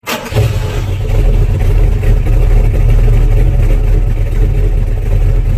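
Car engine running with a loud, deep, steady rumble that starts abruptly out of silence.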